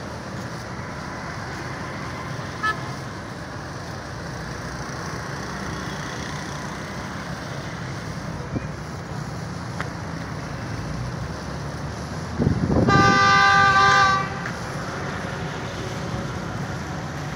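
Steady road traffic noise, with a short beep about two and a half seconds in and a vehicle horn sounding once for about a second and a half near the end, the loudest sound.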